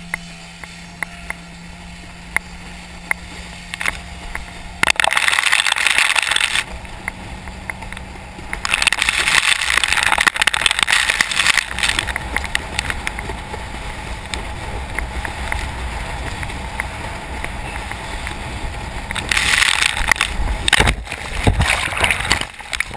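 Rushing wind and churning water spray buffeting a helmet-mounted camera while being towed on a surfboard at speed behind a jet ski, with a steady engine hum in the first few seconds. The noise swells loudly in long gusts, and near the end the rider wipes out and the camera plunges into the water.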